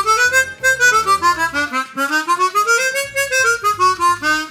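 Hohner Super 64 chromatic harmonica played in its lower register: quick runs of single notes stepping up and then back down, several times over. It is played as a test of how easily and airtightly the low notes respond.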